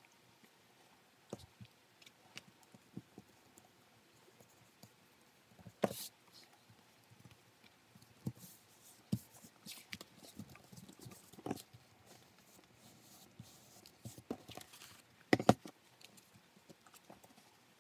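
Hands pressing and smoothing crocodile leather down onto a backing board and pinching its edge: scattered light taps, rubs and soft clicks, the loudest about six seconds in and again near the end.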